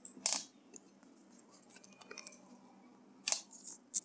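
A few short, sharp clicks, the loudest about a quarter of a second in and another near the end, over a faint steady hum.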